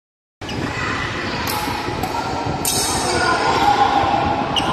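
Badminton rackets hitting a shuttlecock during a rally: sharp cracks about one and a half, two and nearly three seconds in, the last the loudest, over the steady background noise of a sports hall with faint voices.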